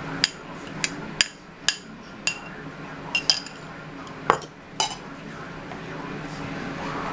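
A spoon clinking sharply against a small ceramic bowl, about nine times over the first five seconds, while beaten eggs are scraped out and the bowl is set down.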